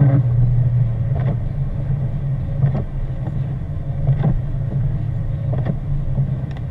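Steady engine and road drone inside a moving car, with a soft stroke repeating about every one and a half seconds.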